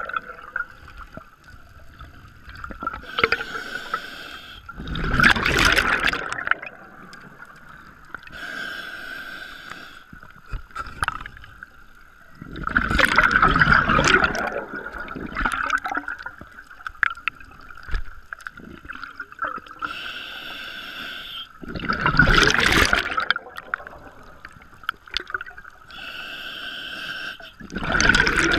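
Scuba diver breathing through a regulator underwater: a hissing inhale followed by a loud rush of exhaled bubbles, about four breaths in all. A steady high-pitched tone runs underneath.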